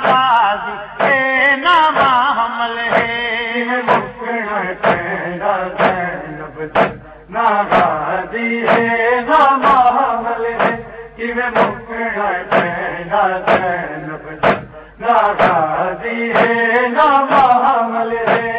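Male voices chanting a Punjabi noha (Shia lament) with no instruments, over rhythmic chest-beating (matam) strikes about once a second.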